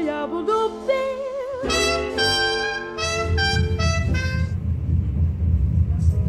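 Swing-jazz background music with brass: a wavering melody line, then a held brass chord that fades out about four and a half seconds in. A steady low rumble comes in about halfway through and carries on to the end.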